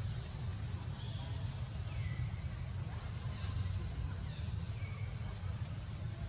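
Outdoor tree-canopy ambience: a steady low rumble and a steady high-pitched hiss, with a few faint short chirping calls scattered through.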